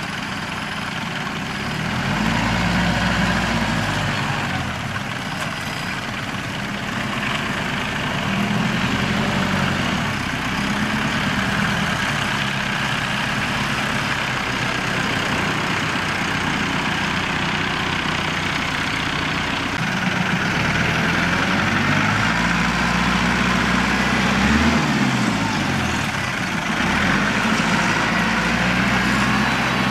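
Small farm tractor's diesel engine running under load as it works through a flooded rice paddy on steel cage wheels, its engine speed rising and falling several times.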